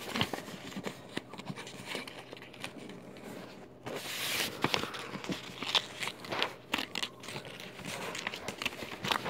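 Construction paper being folded and creased by hand: irregular rustling and crinkling with small clicks, and a louder rustle about four seconds in.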